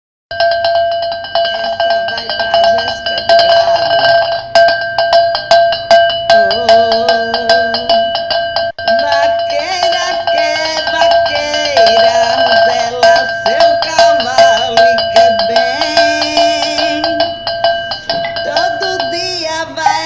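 Upbeat music with a fast, regular percussion beat and a cowbell-like ringing tone held throughout, with a melody that bends up and down over it from about six seconds in.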